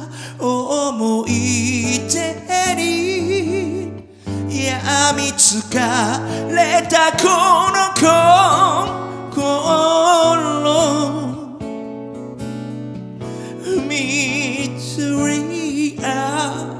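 Live acoustic music: two acoustic guitars played together while a singer holds long notes with a wavering vibrato.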